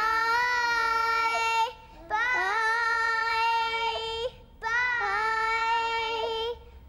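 Several children's voices singing together in three long, held phrases of about two seconds each, with short breaks between them.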